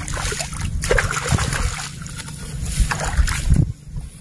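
Hands splashing and sloshing in shallow canal water, with several separate louder splashes, as caught fish are released back into the water.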